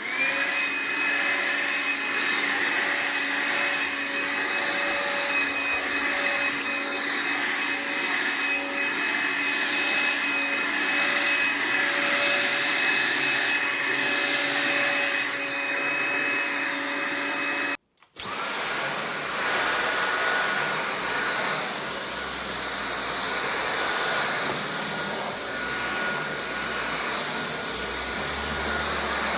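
Two cordless stick vacuum cleaners, a Makita and a Dyson V7, run in turn. The first hums steadily with a fixed whine; after an abrupt cut about 18 seconds in, the second starts up with a higher-pitched whine.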